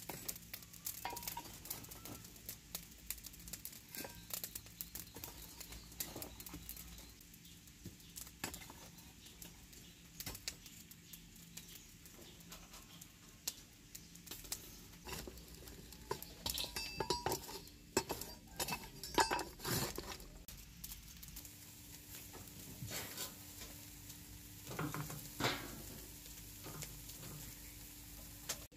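Irregular clinks, taps and scrapes of metal on clay charcoal stoves as the charcoal is stirred and a wire grill rack is handled. The clinks are densest and loudest about two-thirds of the way through, and a single knock follows later.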